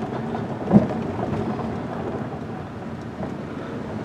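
Wind buffeting the microphone outdoors, an uneven low rumbling noise, with a single thump about three-quarters of a second in.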